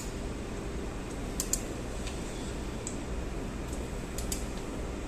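Sharp metallic clicks, several in close pairs, every second or two, from a ratchet wrench turning the engine's crankshaft clockwise by hand, over a steady low hum.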